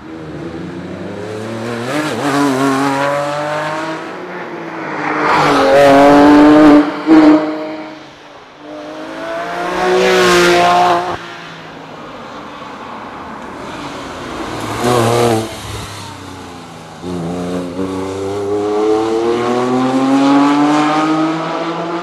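Porsche 911 GT3's naturally aspirated flat-six accelerating hard through the gears, its pitch climbing and then dropping at each upshift. Passes in several bursts, loudest about six and ten seconds in, with a long climb through the revs near the end.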